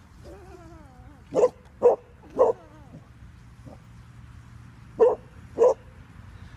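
Bernese Mountain Dog barking: three sharp barks in quick succession, about half a second apart, then a pause and two more barks.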